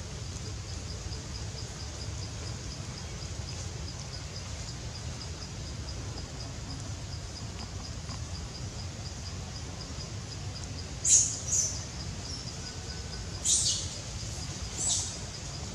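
Insects chirping in a steady, rapid high pulse over a low outdoor rumble. In the last few seconds, four short shrill animal calls stand out above it.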